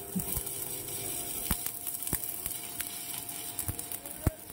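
Stick-welding arc from a FUGU TB-300 inverter welder at full current, burning a thick number-10 electrode steadily without sticking: a continuous crackling hiss broken by scattered sharp pops of spatter.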